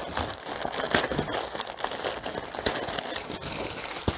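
Cardboard subscription box being opened by hand: flaps and the packaging inside rustling and crinkling in a steady run of small scrapes and clicks, with one sharp tap near the end.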